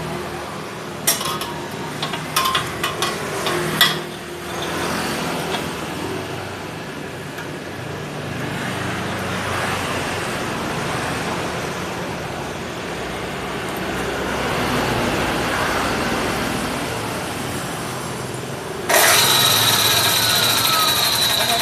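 Low-speed metal cut-off saw with an alloy (carbide-tipped) blade, working on stainless steel. A few sharp clicks come in the first seconds, then a steady running sound. About nineteen seconds in, a sudden louder cutting sound with a high steady ring takes over.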